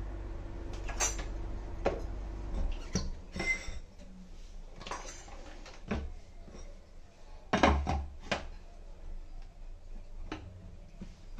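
A Sujata mixer grinder being handled without running: its plastic lid is fitted onto the stainless-steel jar and the jar is set onto the motor base. A scattering of clicks and knocks, with the loudest pair a little past halfway.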